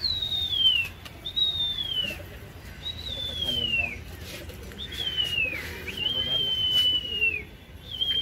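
Shrill human whistling: about six long, falling whistles in quick succession, a pigeon flyer whistling to keep his just-released flock of pigeons circling aloft.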